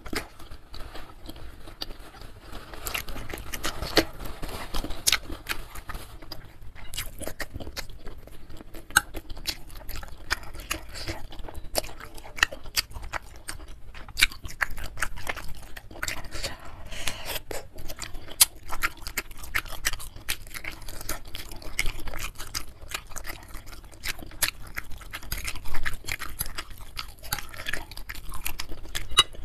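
Close-miked chewing: a person eating beef-and-tendon meatballs and noodles in soup, a steady run of wet mouth clicks and smacks.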